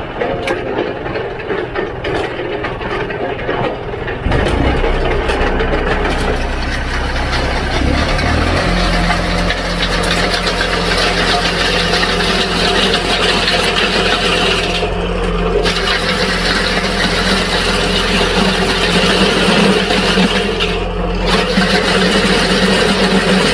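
Tractor engine driving a tractor-mounted Farmking post-hole auger as it bores into soil. The engine picks up about four seconds in and settles into a steady, higher-pitched run from about eight seconds on, with a constant rushing noise of the auger working over it.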